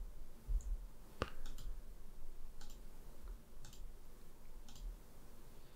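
Computer mouse and keyboard clicks: about seven short, separate clicks, spaced irregularly roughly a second apart.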